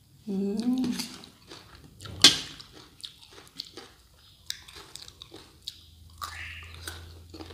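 Close-up mouth sounds of chewing shredded green mango salad: wet chewing with small crunching clicks. A short hummed vocal sound comes right at the start, and a single sharp click, the loudest sound, about two seconds in.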